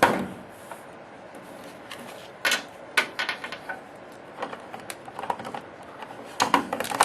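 Hard plastic toy parts clicking and knocking as the Tensouder morpher is handled and hooked onto the Gosei Card Buckle: scattered sharp clicks, with a cluster a few seconds in and a quicker run near the end.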